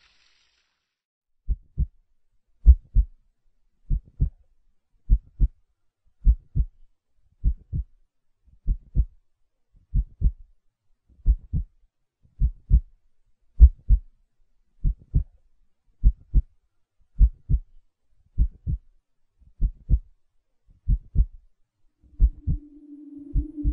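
Heartbeat sound effect: steady paired low thumps, lub-dub, about every 1.2 seconds. Near the end a steady low drone tone comes in under the beats.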